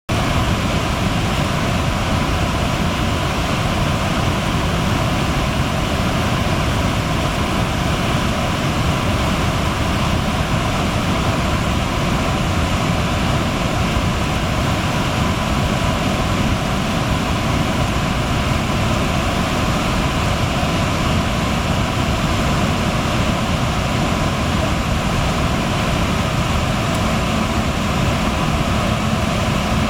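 Rushing floodwater: a loud, steady, unbroken rushing noise of fast-flowing water, heaviest in the low end.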